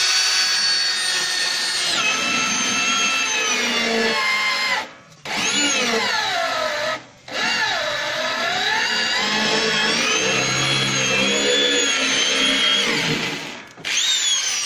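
Iskra electric drill with a step drill bit running while it cuts through the steel plate of a grill box. It stops briefly three times, and its whine sags and recovers as the bit bites after each restart.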